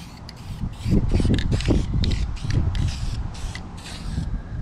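Aerosol can of Dupli-Color vinyl and fabric dye spraying in short, rapidly repeated hisses as a light first coat goes on. A low rumble joins in about a second in and is loudest for the next couple of seconds.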